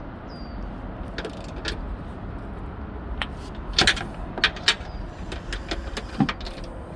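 Irregular metallic clicks and knocks of hand tools working on a car's strut mount nuts, with a few louder clanks in the middle, over a low steady background hum.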